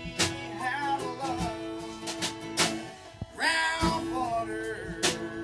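Live bluegrass band playing: fiddle, mandolin and strummed acoustic guitar with a drum kit, a wavering melody line over the chords and a few sharp drum or cymbal hits.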